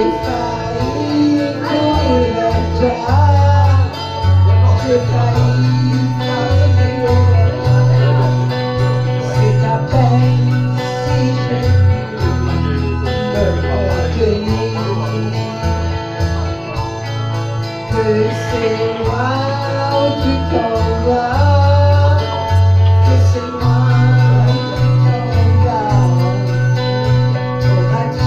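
A woman's voice singing a slow French song into a microphone over a karaoke backing track with guitar and a bass line.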